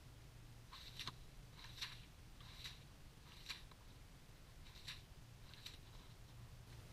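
Faint crunching of broken pond ice being handled at a freshly chopped ice hole: about seven short, crisp crunches at uneven intervals.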